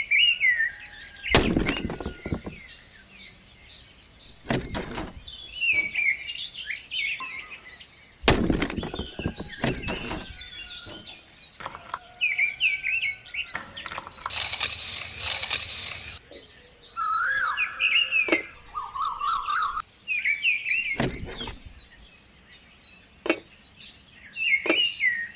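Small birds chirping on and off, with several sharp knocks scattered through and a burst of hissing noise lasting about two seconds around the middle.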